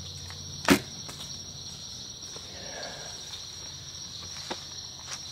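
Insects trilling steadily in a high, even drone. A sharp click about three-quarters of a second in is the loudest sound, and a fainter click comes near the end.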